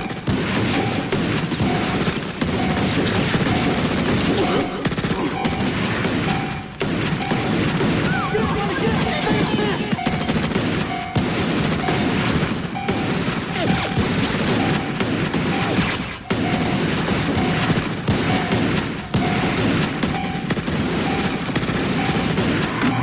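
Intro of a Memphis rap track: a dense, noisy sound-effect bed of gunfire and crashes, with a short tone repeating about once a second.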